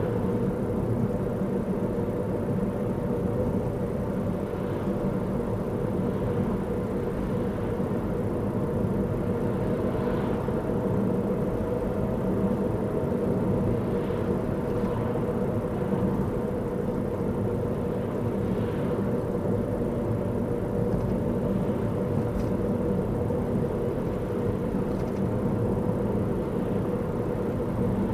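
Car driving at a steady speed, a constant low rumble of engine and road noise heard from inside the cabin, with a steady hum underneath.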